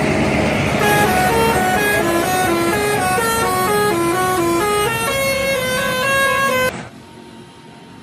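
Bus telolet horn, a multi-note musical air horn, playing a quick tune of stepped notes for about six seconds over background noise. It stops abruptly near the end, leaving faint background noise.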